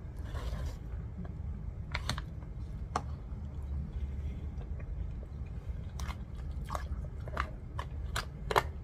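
Close-up eating: chewing a mouthful of macarona bechamel, baked pasta in béchamel sauce. A plastic fork clicks and scrapes against an aluminium foil tray in sharp taps, sparse at first and more frequent near the end.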